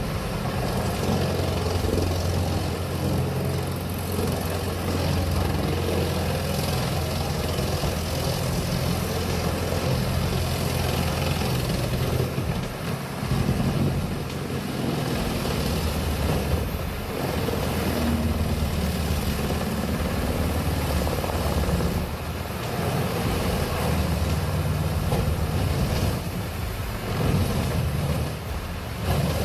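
Diesel engine of a heavy forestry machine running steadily, with short dips in level now and then.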